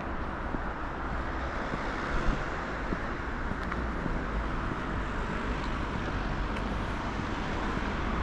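Steady road traffic noise, a continuous rush of passing cars, with a brief knock about two seconds in.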